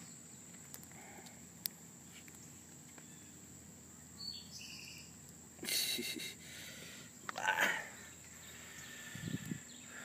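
Outdoor insect drone, a steady high-pitched hum, with a bird's two-note falling call about four seconds in and again at the very end. Two brief rustling noises around the middle are the loudest sounds.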